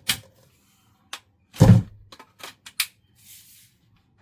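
Hard plastic parts of a cordless handheld vacuum cleaner clicking and knocking as they are fitted together and locked, with one heavier clunk about a second and a half in. The vacuum's motor is not running.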